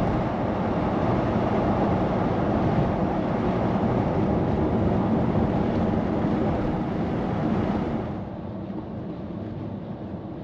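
Steady road and engine noise inside the cabin of a VW California camper van driving at speed. About eight seconds in the noise becomes quieter and duller.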